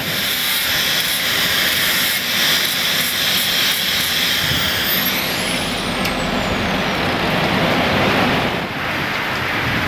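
Angle grinder grinding the steel jaws of a forged tong, its whine falling away about halfway through as it spins down. A steady hiss of heavy rain runs underneath.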